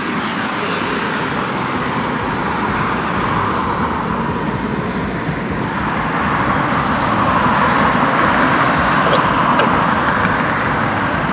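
Steady rushing noise of distant jet aircraft engines, growing a little louder in the second half.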